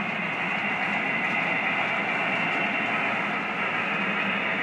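Model trains rolling across a layout bridge, a steady rumble of small wheels on the track.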